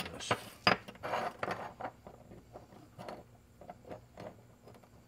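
Small metal parts being handled and set down on a workbench: a metal holding block and an encoder head clicking and clinking into place, the louder knocks in the first two seconds, lighter taps following.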